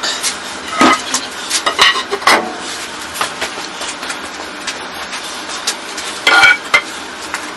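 A wooden batten knocked and slid on a gritty, sawdust-covered concrete floor: a few sharp knocks, then a long crackling scrape, and a short squeaky sound near the end.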